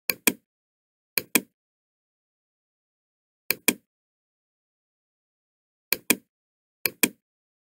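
Computer mouse button clicking: five pairs of sharp clicks, each pair close together, with silence between.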